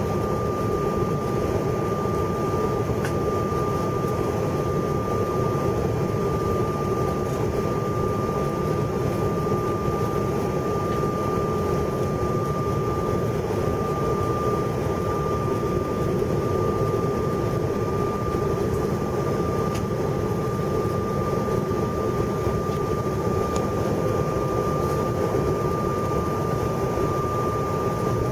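Airliner cabin noise during descent: a steady roar of the jet engines and rushing air, with a constant thin high tone above it.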